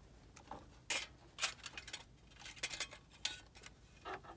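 Irregular clicks and light rattles of a radio mounting kit and wiring harness being handled and pushed through the dash's radio opening, several sharp clicks spread over the few seconds.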